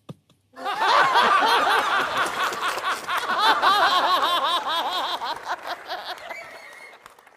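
Studio audience laughing together, starting about half a second in and fading out near the end.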